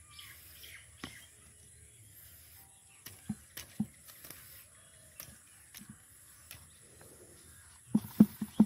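Scattered short knocks and thumps, with a quick run of louder thumps near the end.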